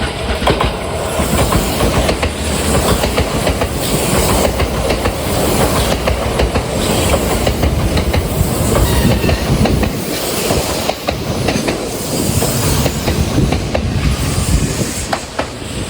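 Kintetsu 21000 series Urban Liner plus electric limited express train rolling past close by, a steady rumble with repeated clacks of wheels over rail joints.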